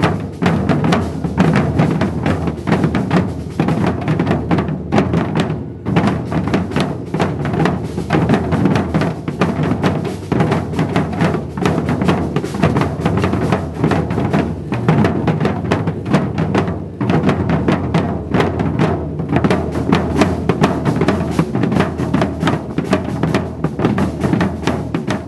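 Maracatu drum ensemble playing a dense, continuous rhythm of many drums, with a brief break about six seconds in.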